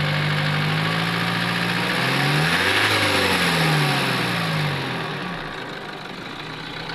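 Isuzu D-Max engine idling, revved up briefly about two seconds in and falling back to a quieter idle; the mechanics say the truck has a misfire.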